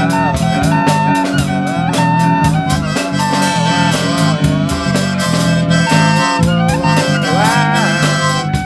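Instrumental break of a song: a harmonica plays a melody with bent notes over guitar, bass and a steady drum beat.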